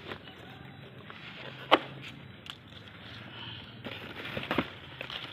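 Mango saplings' leaves and the cardboard box rustling as the plants are handled and one is lifted out, with a single sharp click about two seconds in and a denser stretch of rustling after about four seconds.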